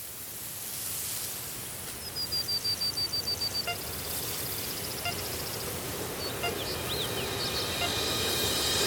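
A bird sings a quick trill of about a dozen high notes about two seconds in, with a few more high chirps later, over a low steady rumble that grows slowly louder.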